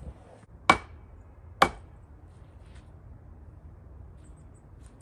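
Two sharp knocks about a second apart.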